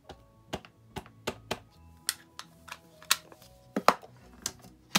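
Plastic ink pad tapped repeatedly onto a clear stamp to ink it: a dozen or so sharp, irregular taps, about two or three a second, the loudest a little before four seconds in.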